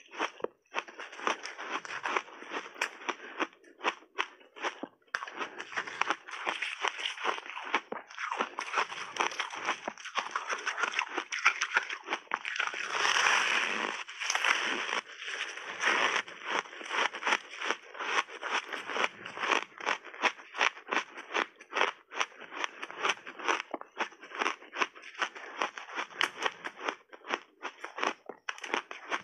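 Close-miked chewing of crunchy frozen passionfruit ice coated in matcha powder: rapid, dense crunching of ice between the teeth, with a louder stretch of crunching around the middle.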